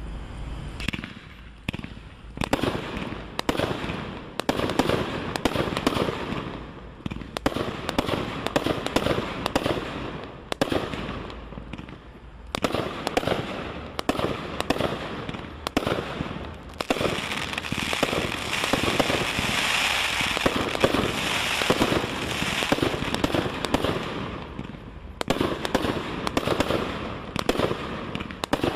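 A Brothers 'Vega' 48-shot 500 g consumer fireworks cake firing: a fast run of tube shots and bursts in volleys with brief lulls between them. The shots grow denser in the second half.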